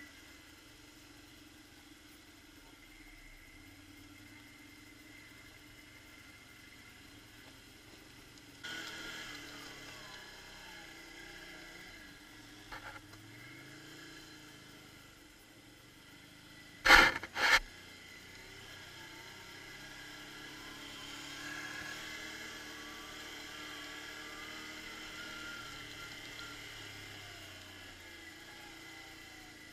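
Quad bike engine running while riding a bumpy dirt track, picking up revs about nine seconds in and again in the second half. Two sharp knocks about half a second apart come midway and are the loudest sounds.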